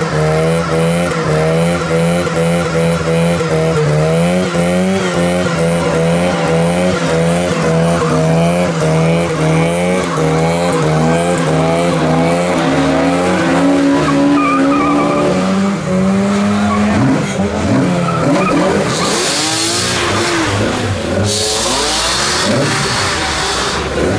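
Classic Mini held at high revs in a burnout, its engine note wavering up and down as the front tyres spin and squeal. About two-thirds through, the steady note breaks up, and bursts of rushing hiss come near the end.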